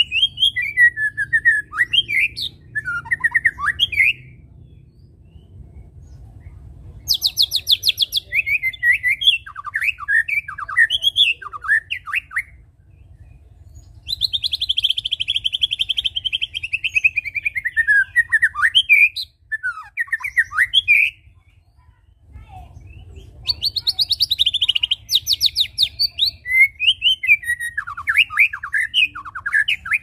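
White-rumped shama (murai batu) singing: four loud phrases of varied whistles and fast high trills, one with a long trilled note that slides downward, separated by pauses of one to two seconds.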